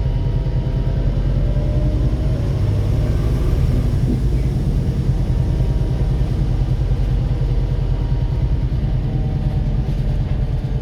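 Volvo B7RLE bus's six-cylinder diesel engine running with a steady low rumble and even rapid pulsing; the engine is knocking.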